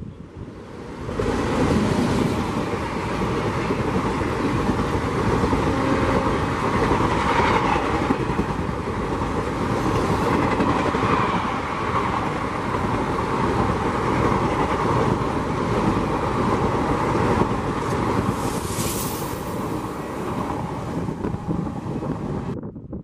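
Express train of ICF passenger coaches, hauled by a WAP-7 electric locomotive, passing at speed: a steady rushing rumble with wheels clacking over the rail joints. It comes in loud about a second in and cuts off abruptly near the end.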